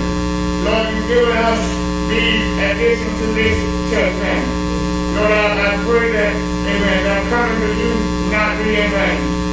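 Steady electrical mains hum made of several constant tones, with indistinct voices under it throughout.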